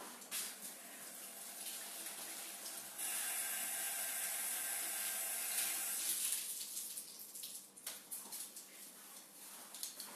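Tap water running into a washbasin, much stronger for about three seconds in the middle and then easing off, as gauze pads are wetted to rinse soap from the skin.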